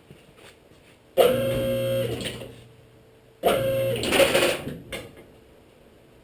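A small motor, like a power tool's, run twice in short bursts of about a second and a half, each starting abruptly with a steady hum and then winding down.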